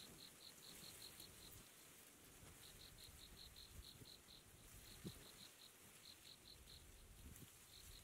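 Faint insect chirping: a high, even pulsing of about six pulses a second, in runs of one to two seconds with short breaks, over soft background hiss.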